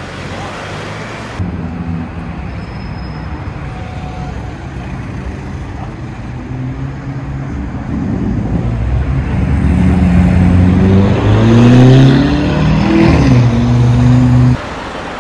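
A car engine accelerating hard in city traffic, growing louder over several seconds. Its note climbs and then drops at a gearshift, loudest near the end, then cuts off abruptly.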